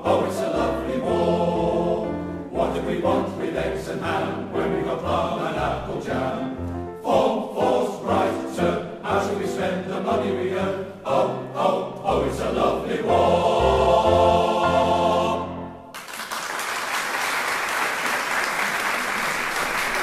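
Male voice choir singing the last chorus of the song, closing on a long held chord that stops about sixteen seconds in. Audience applause follows at once.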